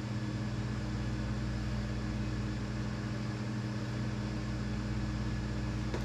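Steady low mechanical hum with an even hiss over it.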